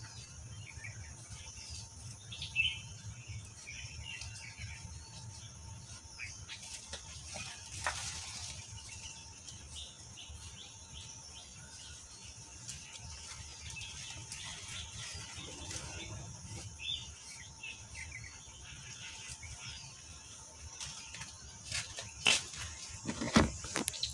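Birds chirping on and off over a steady high insect drone, with a few sharp clicks and knocks near the end as the phone is handled.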